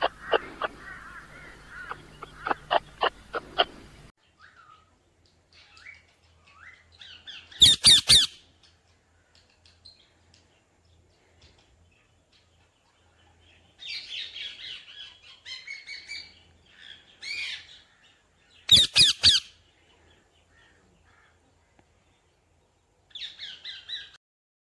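Rose-ringed parakeets calling: two loud calls about eleven seconds apart, a stretch of softer chattering between them, and a short burst near the end. Before that, the opening seconds hold a run of rapid sharp clicks over a low buzz, which cuts off suddenly.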